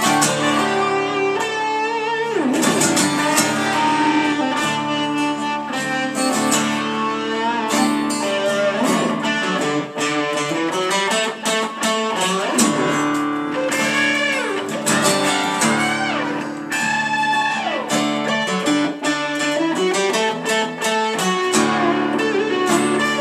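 Instrumental break of a country-rock song: a lead guitar plays a solo full of bent notes over a steady band backing.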